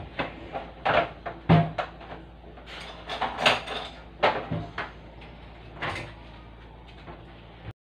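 A string of irregular knocks and clatters from someone moving about a kitchen, handling things around the cupboards and fridge. The sound breaks off briefly near the end.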